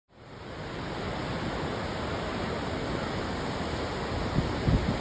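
Rushing water, a steady full roar like a waterfall or fast stream, with a few low thumps about four seconds in.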